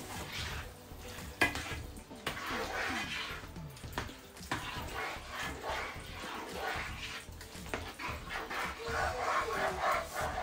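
A plastic spatula stirring and scraping a thick, wet sauce of melting coconut milk, peppers and shrimp in a nonstick pot, with clicks against the pan and one sharp knock about a second and a half in.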